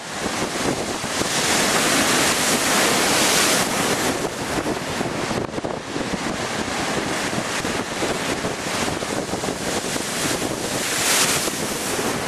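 Storm surf breaking against a breakwater of concrete tetrapods, with strong wind buffeting the microphone. The rush of the breaking waves swells loudest about two to three seconds in and again near the end.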